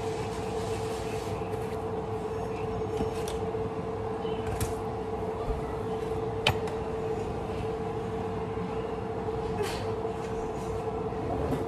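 Steady hum of a running machine, holding one constant tone over a low rumble, with a few light clicks along the way.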